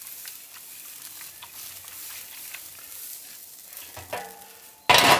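Ribs sizzling and crackling on a drum smoker's grate over hot coals. Near the end the metal lid scrapes and clangs down onto the steel drum, ringing briefly.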